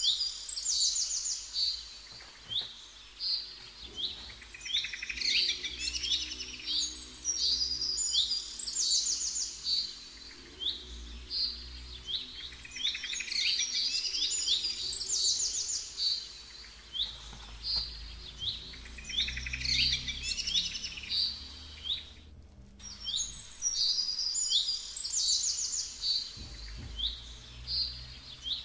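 Small songbirds chirping and twittering in quick, high, repeated phrases that recur every few seconds.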